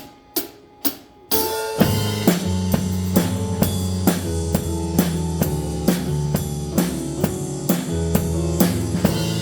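Three sharp clicks counting in, then a full drum kit enters with the band, playing a steady beat with kick and snare strokes about two a second under sustained bass and chords.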